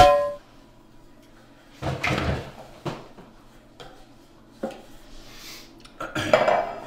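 A metal muffin tin clangs once against a person's head, ringing briefly. A short scuffling noise follows about two seconds in, and near the end the tin clatters as it is set down on the counter.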